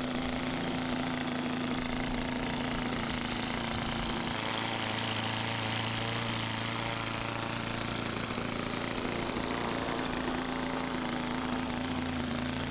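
Model airplane engine running steadily, its note shifting about four seconds in and again around ten seconds.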